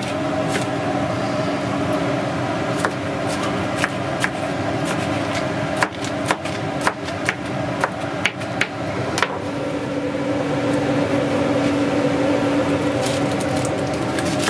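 Chef's knife chopping red bell peppers on a cutting board: irregular sharp knocks, most of them in the middle stretch. Underneath is a steady mechanical hum whose pitch changes about two thirds of the way through.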